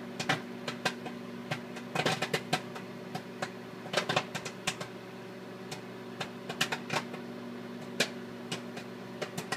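Popcorn kernels popping in a paper bag inside a running microwave oven: irregular sharp pops, a few a second and sometimes in quick clusters, over the oven's steady hum.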